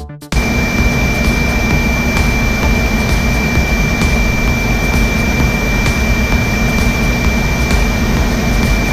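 Aircraft engine and airflow noise heard from inside the cabin: a loud, steady roar with a constant high whine running through it. It starts just as a music track cuts off at the very beginning.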